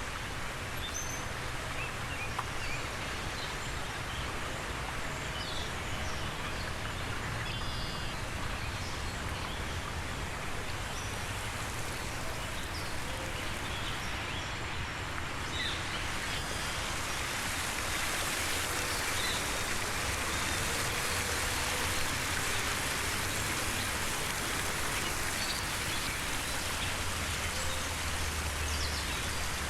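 Outdoor field-recorded ambience layered into a soundscape: a steady rushing hiss that turns fuller and brighter about halfway through, with scattered short bird chirps and a low rumble underneath.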